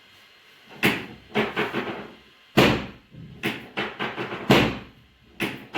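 A series of sharp thumps and slaps in quick, irregular succession, some in clusters, the heaviest and deepest about two and a half seconds in.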